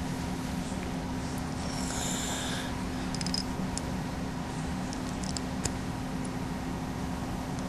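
Steady low hum, with a few light clicks and rattles about two to three seconds in and again near five and a half seconds.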